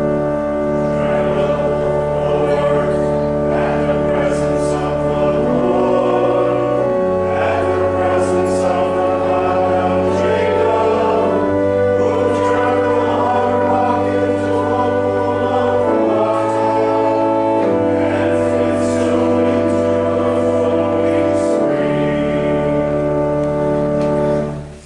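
A church organ holding chords while a choir and congregation sing a hymn, the bass notes changing every few seconds. The music cuts off abruptly near the end.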